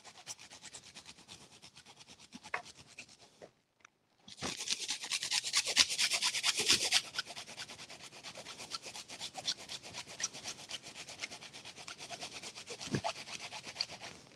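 Fresh ginger root grated on a small handheld grater: rapid rasping strokes, with a short pause about three and a half seconds in, louder for a few seconds after it, then softer.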